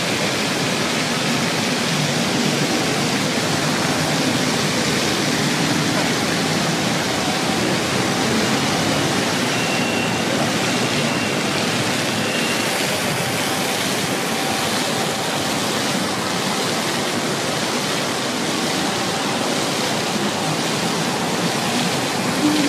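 Steady rushing and splashing of water from a plaza fountain.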